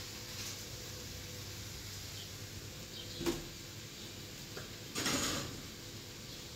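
Kitchenware being handled: a single knock about halfway through, then a short clatter a moment later, over a faint steady hum.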